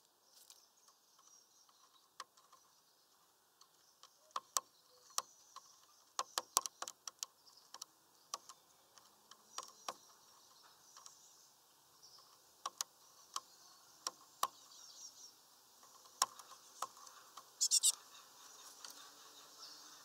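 Great tit pecking and hammering at seed on a wooden stick perch: irregular sharp taps, some in quick runs. Faint high chirping runs underneath, with a short burst of high calls near the end.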